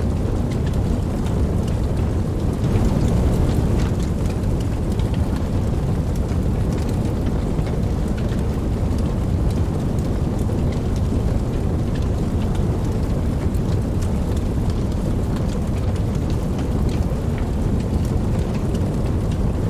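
Steady rain with scattered drop ticks over a continuous low rumble of distant thunder, which swells slightly about three seconds in.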